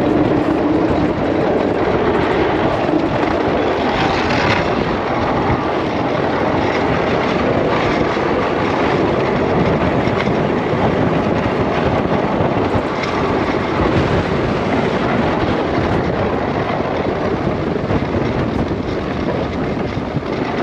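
Plow truck driving with its front plow blade pushing heavy wet slush: a loud, steady, dense rumble of engine, tyres, blade and snow, with wind on the hood-mounted camera.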